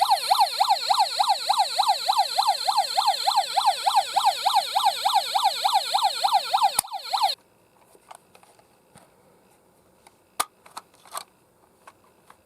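Toy ambulance's electronic siren playing a fast yelp, the pitch sweeping up and down about three times a second, then cutting off suddenly about seven seconds in. A few faint clicks follow.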